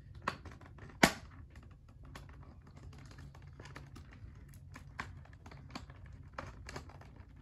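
Scissors cutting a toy figure free of its packaging: scattered clicks and snips, with one sharp snap about a second in.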